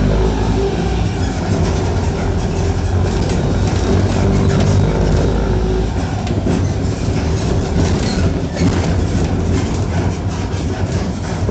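Mercedes-Benz OF-1418 bus's six-cylinder diesel engine and exhaust running under way, a deep steady drone with rattling knocks from the moving bus. The deep drone weakens about six seconds in, while the rattling goes on.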